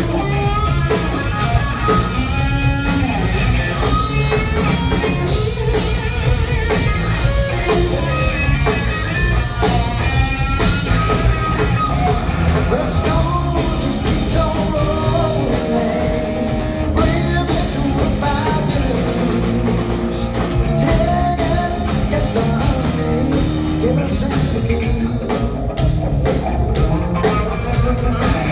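Live blues-rock trio playing loudly: a Fender Stratocaster electric guitar over bass guitar and a drum kit, with a singing voice.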